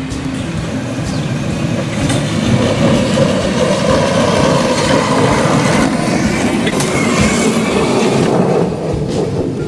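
A small 15-inch gauge ride-on locomotive running past on its track: steel wheels rumbling and clicking on the rails. It grows louder as it approaches, then drops away sharply near the end.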